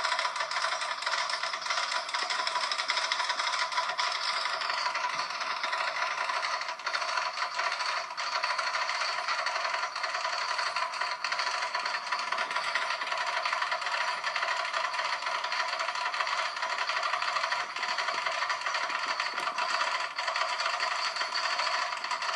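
Metal chain dragging along the ground: a steady, unbroken jangling rattle of links scraping and clinking.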